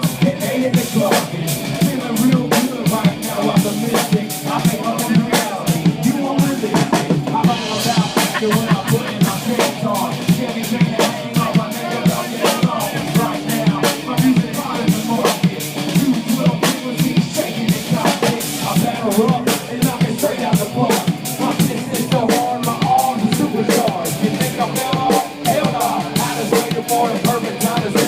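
Live country-rap song played loud over a concert PA, driven by a heavy drum-kit beat of kick and snare.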